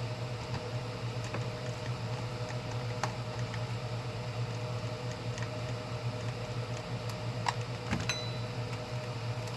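Light clicks and taps of a plastic transistor radio case being handled and fitted together, a few sharper clicks near the end, over a steady low hum.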